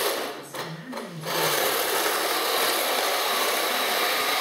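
Heng Long 1/16 RC M41 Walker Bulldog tank driving: a steady, rasping mechanical whir from its electric drive and tracks, which dips briefly about half a second in and then runs on evenly.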